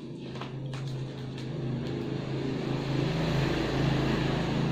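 A motor vehicle's engine running steadily and growing louder over the first few seconds, then holding, with a couple of faint utensil clicks at the start.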